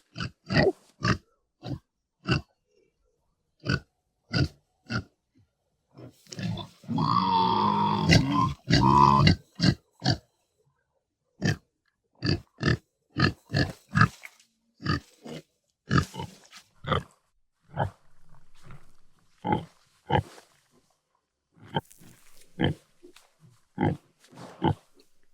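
Domestic pig grunting in a long series of short, separate grunts, with a louder, drawn-out cry in two parts about seven seconds in.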